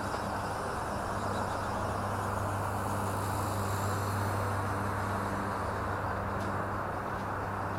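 WLtoys V950 RC helicopter in flight, its rotor and motor giving a steady drone, with wind rushing over the microphone.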